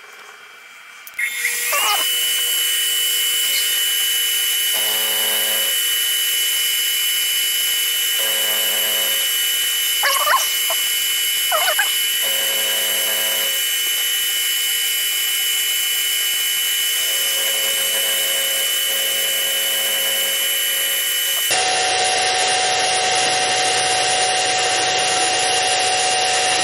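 Sieg X2 mini mill spindle starting about a second in, then running with a steady high whine while an end mill plunge-cuts an aluminium plate. A harsher cutting tone comes and goes every few seconds as the cutter bites.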